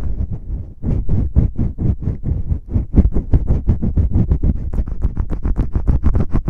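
Fingers rapidly rubbing and tapping on the ear of an ASMR microphone, a fast even rhythm of about seven or eight strokes a second with a short lull just before a second in.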